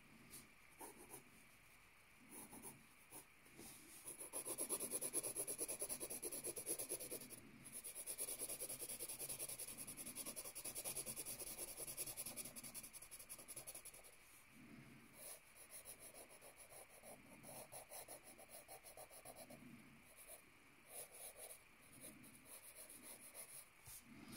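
Pencil shading on notebook paper: quick back-and-forth scratching strokes, busiest and loudest from about four to fourteen seconds in, then lighter and sparser.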